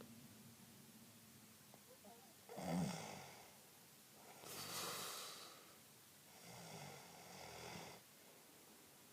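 Snoring in three breaths. A short loud snore comes about two and a half seconds in, then a longer hissing breath around five seconds, then a weaker snore near the end.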